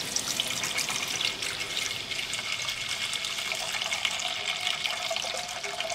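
Liquid stock poured in a steady stream from a carton into a metal cooking pot, splashing into the pot as it fills.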